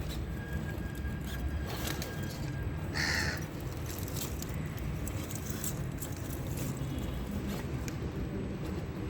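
One short, harsh bird call about three seconds in, over a steady low rumble and a few light clicks.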